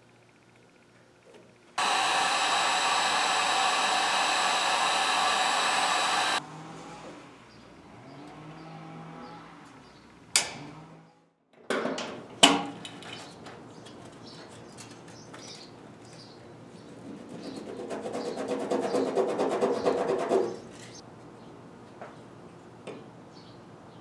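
Heat gun blowing steadily for about four and a half seconds, shrinking heat-shrink tubing over a wire splice, then cutting off. Two sharp clicks follow a few seconds later, and near the end a second rushing blast swells for about three seconds and stops suddenly.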